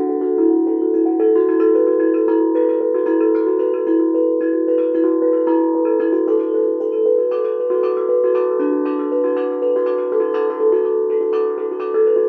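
Handpan played with small felt mallets: a quick, continuous run of clear, bright notes that ring on and overlap, with no finger noise.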